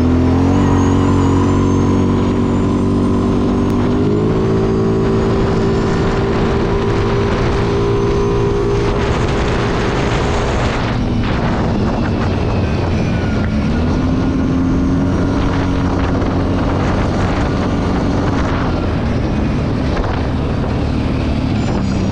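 Kawasaki Brute Force 750's V-twin engine pulling hard at speed, with wind rushing over the microphone. The engine note steps up a little in the first few seconds, dips around halfway through, then climbs again.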